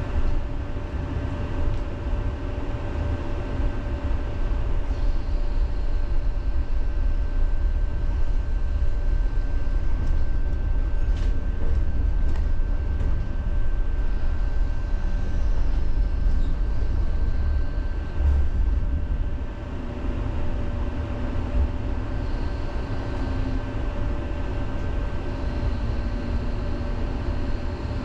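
Tram running along city tracks, heard from inside the car: a steady low rumble with a constant whine on top, and a few short clicks near the middle.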